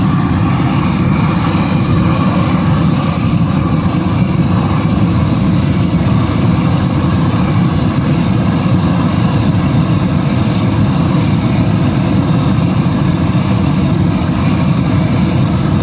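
An engine running steadily and loudly at an even speed, with no change in pitch or load.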